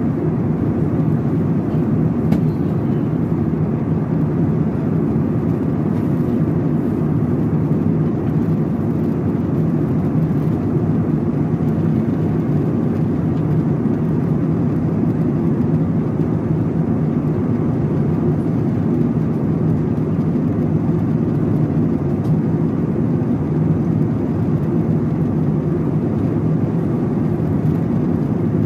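Steady low drone of a jet airliner cabin at cruising altitude: engine and airflow noise heard from inside the cabin.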